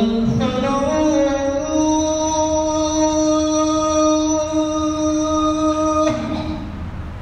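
A man's voice chanting, holding one long note that rises slightly at the start, stays level for about six seconds, then breaks off. A low steady rumble runs underneath.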